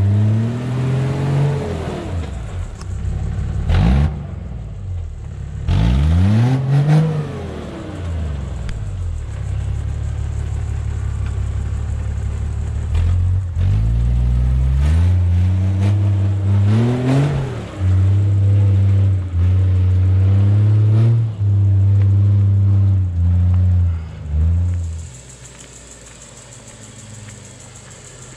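Toyota Land Cruiser engine revving up and down repeatedly as it crawls up a steep, rutted dirt track, the pitch rising and falling with each push on the throttle, then held in steady spurts. About 25 seconds in the engine sound drops away to a faint steady hiss.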